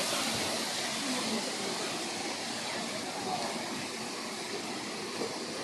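Outdoor ambience: a steady hiss with faint, distant voices now and then.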